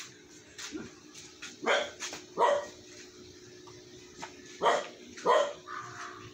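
A dog barking twice in two pairs, short loud barks about two and a half seconds apart between the pairs.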